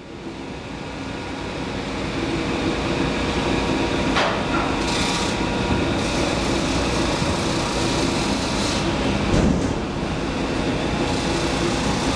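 Steady machine hum and rushing noise that swells over the first two seconds and then holds, with a faint click about four seconds in and a soft thump about nine seconds in.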